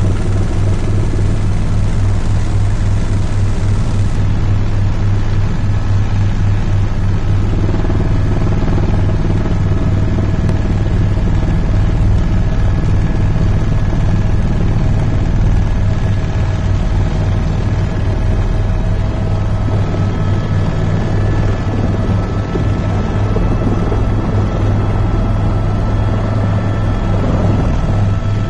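Helicopter heard from inside the cabin: engine and rotor running steadily, a loud low drone with faint steady whining tones above it.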